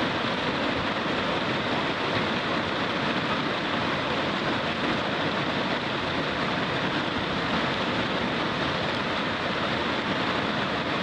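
Whitewater river rapids rushing steadily, a constant loud roar of churning water close by.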